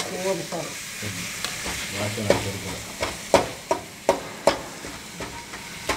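Spoon stirring chopped onions and tomatoes in an aluminium kadai, scraping through the food and knocking on the metal pan several times in quick, sharp clinks, over a light sizzle of frying.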